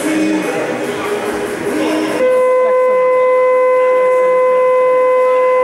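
Basketball game horn sounding one long, steady, loud tone that starts about two seconds in, the signal that ends a timeout. Before it, voices echo in the hall.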